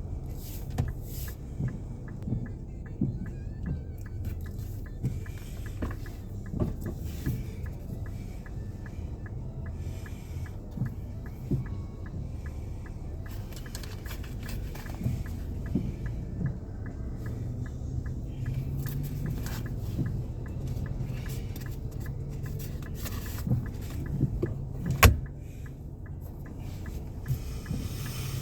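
Inside a moving SUV's cabin: steady low engine and road rumble, with scattered light ticks and one sharp knock about 25 seconds in.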